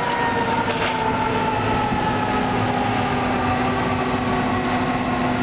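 Hydraulic excavators working: a steady diesel drone with a whine that slowly falls in pitch.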